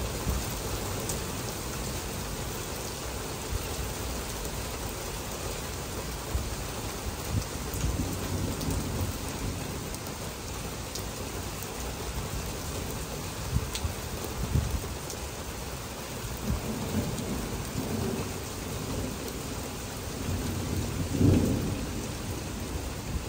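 Heavy, steady rain falling on lawns and pavement, with low rumbles of distant thunder rolling in and out, the loudest about 21 seconds in.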